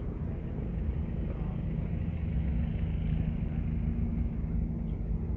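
A vehicle engine idling close by: a steady low rumble with an even hum that does not rise or fall.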